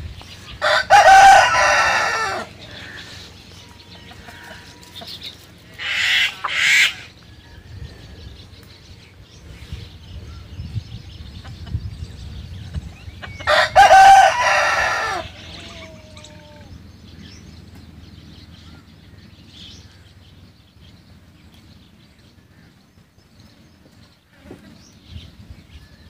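A rooster crowing twice, each crow loud and about two seconds long, the first about a second in and the second about halfway through, with a shorter two-part call between them. Hens cluck softly in the quieter stretches.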